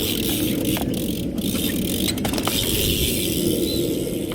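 BMX bike's rear cassette hub freewheeling, a fast steady buzz of pawl clicks as the wheel or cranks turn, with a few sharper clicks along the way.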